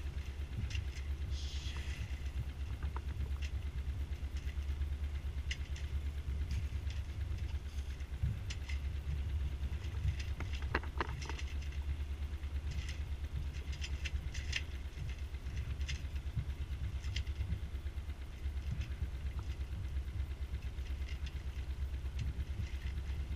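Wind buffeting the camera microphone on a small sailboat under sail, heard as a steady low rumble with light ticks and patters scattered through it.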